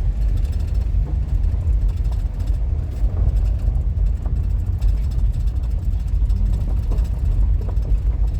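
Minivan driving on a rough dirt road, heard from inside the cabin: a steady low rumble of engine and tyres, with occasional faint knocks from the rough road.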